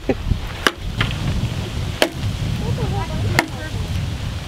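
Machete blade chopping into a dry dead branch: three sharp chops roughly a second or more apart, with a lighter knock just after the first.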